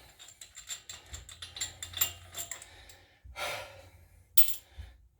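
Hand tools clicking and clinking on the front axle nut of a 2007 Ford Explorer as the nut is taken off: a run of small metallic clicks, then one sharper clank about four seconds in.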